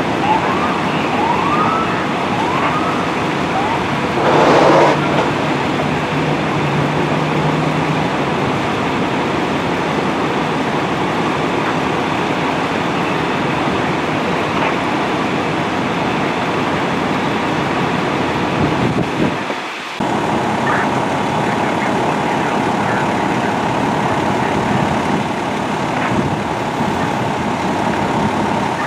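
Fire engines' diesel engines idling with street traffic, a few short rising siren whoops in the first seconds and a loud burst of hiss about four seconds in. After a brief break about twenty seconds in, the steady engine noise resumes with a thin steady tone over it.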